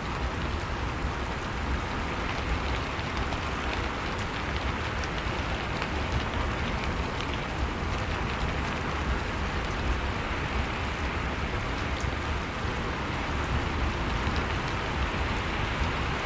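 Heavy rain pouring down steadily, a dense hiss of drops on hard surfaces with faint scattered patters of individual drops and a low rumble.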